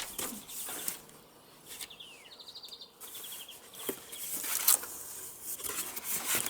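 Packaging and loose parts being handled as a box is unpacked, with sharp clicks and rustling. Small birds chirp in short, quick trills in the background.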